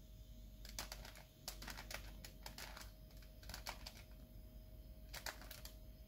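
Plastic clicks and clacks of a bandaged 3x3 Rubik's cube as its faces are turned by hand, a quick irregular series of turns. The clicks are faint, over a low steady hum.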